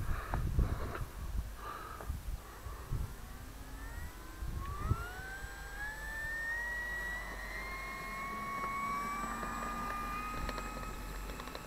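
A 1700mm FMS P-47 radio-control warbird's electric motor spools up about four seconds in, its whine rising slowly and steadily in pitch as it speeds up. Low knocks and rumble come before it.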